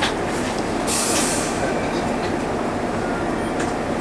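Isuzu Erga KL-LV280L1 city bus's engine running steadily, heard inside the cabin, with a short hiss of air about a second in.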